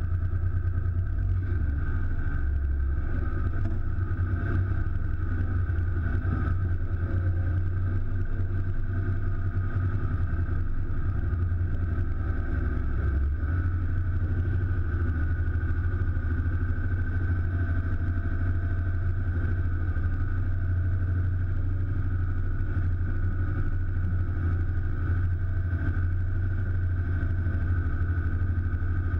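M35A2 2.5-ton military truck's turbocharged multifuel diesel engine running at a steady, even speed, a constant low hum with no revving.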